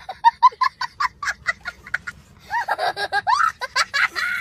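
A young child laughing hard: first a quick run of short laughs, then, from about halfway, longer high-pitched squeals of laughter.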